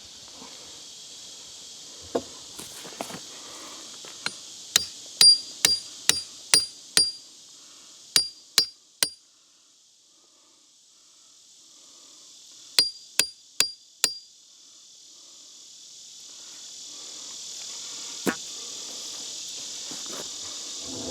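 A hammer striking the top of a steel J-bolt, driving it into a freshly concrete-filled block core: sharp, ringing metallic blows about two a second, in runs of seven, three and four, with one more blow near the end. Insects drone steadily underneath.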